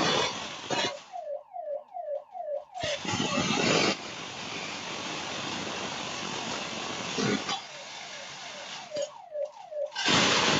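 An alarm siren sounding in rapid falling whoops, about four a second. Loud stretches of noise without any tone cut in between the runs of whoops, from about three to seven seconds in and again near the end.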